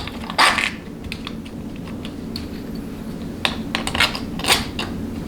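Small metal bolts clicking and rattling against the valve body's channel plate as they are handled and started by hand, in scattered light ticks with louder clinks about half a second in and again about four and a half seconds in. A steady low hum runs underneath.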